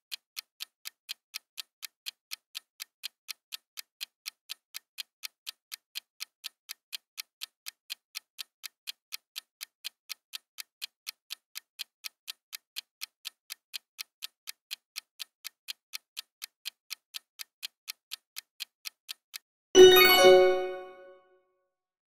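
Clock-ticking countdown timer sound effect, about three even ticks a second, ending with a loud ringing chime that dies away over about a second and a half as the time runs out.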